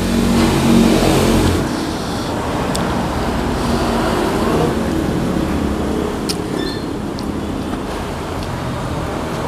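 Road traffic going by: a steady low engine rumble with a few small clicks. It is a little louder in the first second and a half.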